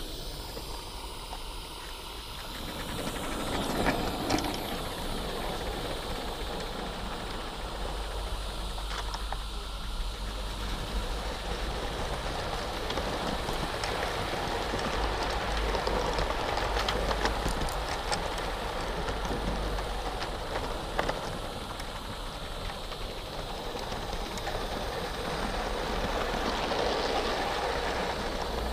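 A 16mm-scale garden railway freight train heard from aboard one of its wagons: the wheels run over the track with irregular clicks and a steady low rumble, under the steady steam hiss of the small live-steam locomotive hauling it.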